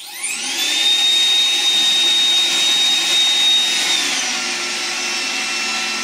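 iRobot Roomba 981 robot vacuum starting its cleaning run: its suction motor spins up with a rising whine, then runs steadily with a high whine over the fan and brush noise. About four seconds in the high whine fades and the machine's pitch settles lower.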